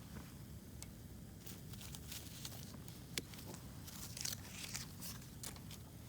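Wood fire crackling, with irregular sharp pops and snaps that grow denser after the first second and one louder snap about three seconds in, over a low steady rumble.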